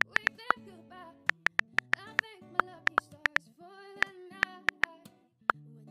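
Typewriter-style key clicks, a quick irregular run of about three or four a second with a short pause near the end, over soft music with a woman's sung melody.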